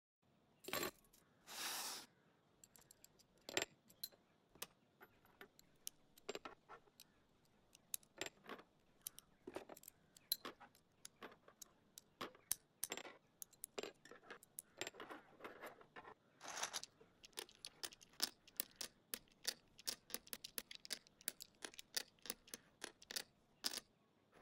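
Small plastic construction pieces and letter tiles being set down and shifted on a wooden parquet floor: a long, irregular series of faint, sharp clicks and clacks. A few short rattling, shuffling bursts come near the start and again about two-thirds of the way through.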